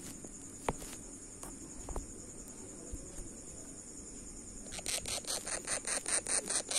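Green parakeet chick's rapid, rhythmic rasping begging calls, about five a second, starting about five seconds in and growing louder as a finger touches its beak. A steady high-pitched trill runs underneath throughout.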